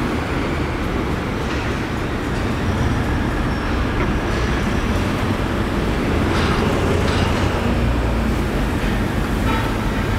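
Steady city background noise: a continuous low rumble of traffic, swelling slightly midway, with occasional faint clicks and knocks.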